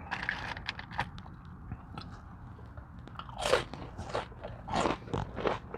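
A person biting and chewing crunchy food close to the microphone, with soft clicks at first and several louder crunches in the second half.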